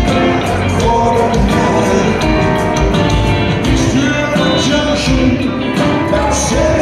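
Live rock band of electric guitar, upright bass and drums playing a steady, loud song with regular drum hits, recorded from the audience.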